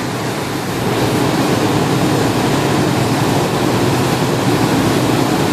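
Motorboat under way at speed: the engine running steadily under the rush of the churning wake, growing a little louder about a second in.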